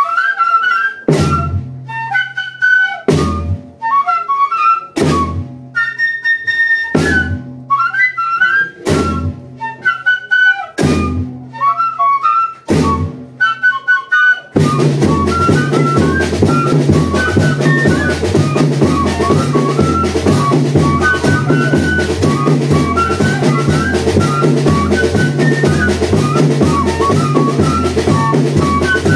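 A banda de pífanos playing: cane fifes carry the melody over single bass-drum strokes about once a second. About halfway through, the full percussion comes in with a steady, dense beat under the fifes.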